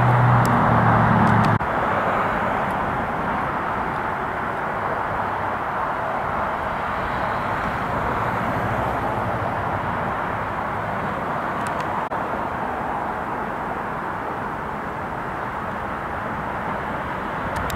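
Steady outdoor rushing noise, such as wind, water or distant traffic, with a low engine-like hum that cuts off abruptly about a second and a half in.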